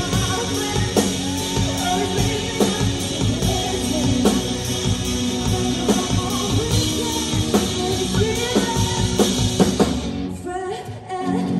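Live rock band playing: drum kit, electric guitars and bass under a woman's singing voice. About ten seconds in, the drums and cymbals drop out and the music falls back to a quieter guitar and voice.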